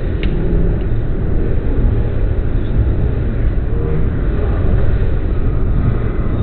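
Toronto subway train running, heard from inside the car: a steady low rumble of wheels on rails, with one short click just after the start.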